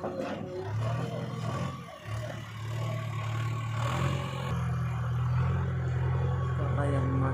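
Heavy diesel machinery running, the engine's level and pitch shifting as the load changes, with brief dips and a faint clatter.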